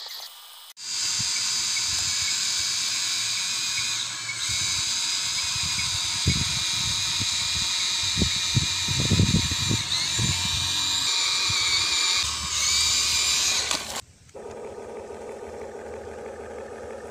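Huina RC toy excavator's electric motors whining steadily at a high pitch as it works, with low knocks in the middle. The whine cuts off suddenly near the end, giving way to a quieter, lower motor hum.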